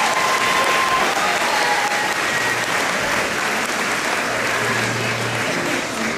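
A large crowd applauding steadily, the clapping easing slightly toward the end.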